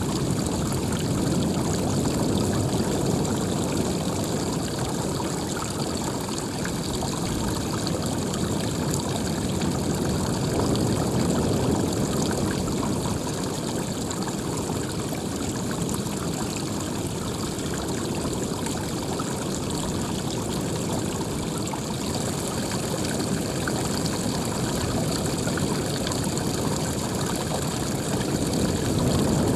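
Running water rushing steadily, like a stream or small cascade.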